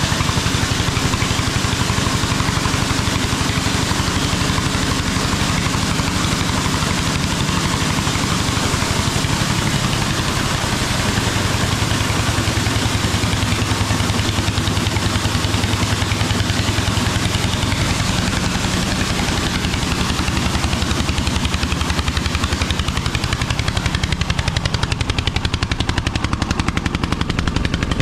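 The grain trailer's donkey engine, a small stationary engine, running steadily with a rapid, even beat as it drives the hydraulic oil that tips the trailer body. It is a bit noisy.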